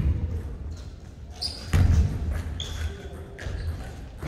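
A basketball bouncing on a hardwood gym floor, with one loud bounce a little under two seconds in, echoing in the large hall. A couple of brief high sneaker squeaks on the court.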